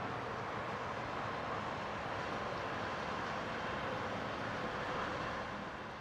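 Steady outdoor hum of distant urban traffic, with no distinct events, fading out near the end.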